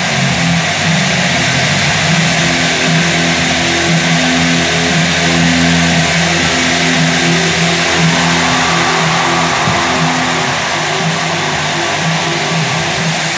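Loud, steady roar of a packed football stadium crowd cheering, with the high clatter of many cowbells ringing through it, and a marching band's low held brass notes shifting chord underneath.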